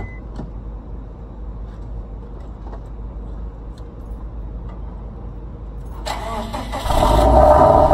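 Cold start of a Subaru Legacy Spec B's 2.5-litre turbocharged flat-four, heard at the tailpipe, with downpipe, headers and resonator delete. After about six seconds of quiet background, the engine starts abruptly and flares up louder about a second later.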